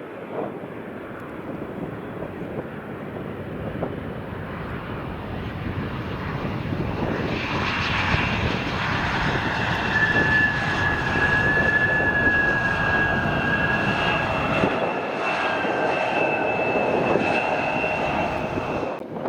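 Jet airliner's engines passing close, a broad rushing noise that grows louder, with a steady high-pitched engine whine coming in about halfway through.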